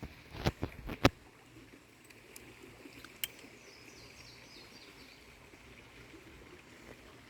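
Quiet outdoor ambience by the water. A few sharp clicks come in the first second, then a faint steady hiss with a brief run of faint high chirps midway.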